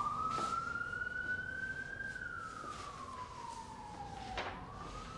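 Emergency vehicle siren wailing: one long, slow rise and fall in pitch, climbing again near the end. A single light knock comes about four seconds in.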